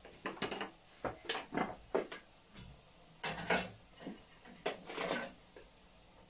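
A string of short clinks, knocks and scrapes of kitchenware being handled on a stove top, as a jar is picked up and its screw lid turned; the loudest cluster comes about halfway through.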